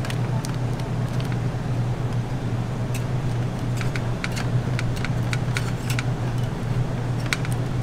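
Steady low hum of kitchen machinery, with scattered light clicks and clinks of metal tongs and spatula against the wire rack, most of them in a cluster in the middle.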